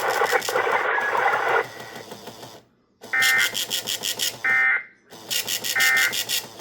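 Three short bursts of Emergency Alert System SAME digital data tones, the warbling modem-like alert signal carried on a broadcast, about 1.3 seconds apart.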